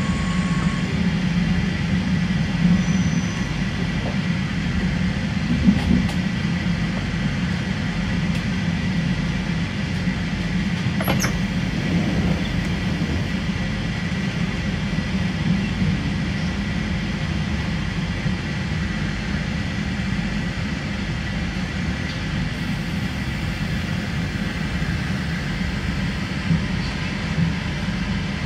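Running noise heard inside an NS Koploper (ICM) electric intercity train as it slows into a station: a steady low hum with wheel-on-rail rumble. A short rising squeal comes about eleven seconds in.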